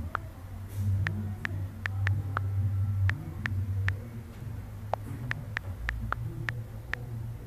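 Phone on-screen keyboard clicking as a message is typed, quick irregular taps about three a second, over a low steady hum.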